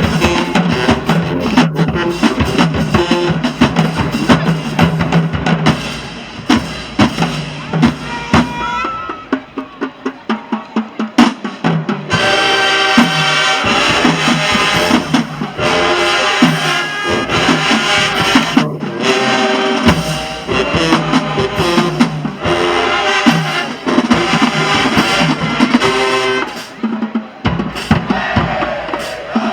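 Marching band playing: brass over a drum line. Near the middle the horns drop back and the drums carry the beat briefly, then the full band comes back in.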